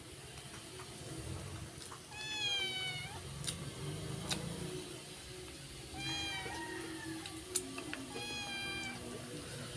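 A cat meowing three times, a few seconds apart, each meow a drawn-out falling call. A few sharp clicks fall between the meows.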